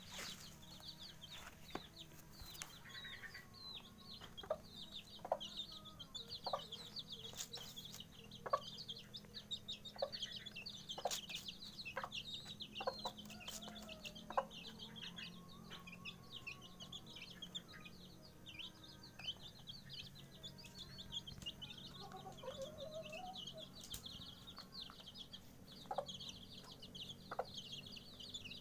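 Eighteen-day-old chicks of native village chickens (ayam kampung) peeping continuously in quick, high chirps, with a few low clucks from the mother hen.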